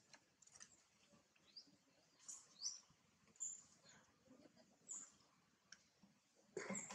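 Faint, high-pitched animal chirps and squeaks scattered through, a few short rising ones among them, with a louder brief sound near the end.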